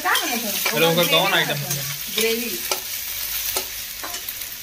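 Minced garlic sizzling in hot oil in a steel kadhai while a perforated metal slotted spoon stirs and scrapes it, with pitched scraping tones in the first couple of seconds and a few sharp taps of the spoon against the pan later on.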